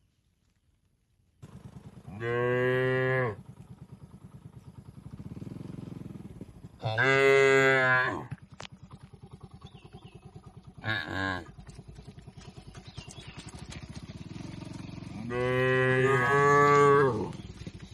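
Cattle mooing in the pen: four loud moos, a short one in the middle and the longest near the end, after a second or so of near silence. A faint, evenly pulsing noise runs underneath between the calls.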